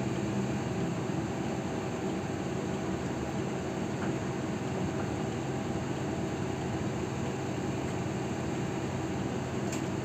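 Steady low hum and air rush inside a city bus, its engine and ventilation fan running.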